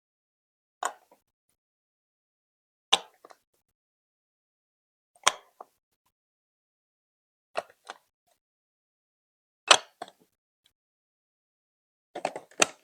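Plastic Lego Duplo bricks being set and pressed into place one at a time: six short clacks about two seconds apart, each with a smaller tap after it, the last a quick cluster of several clicks.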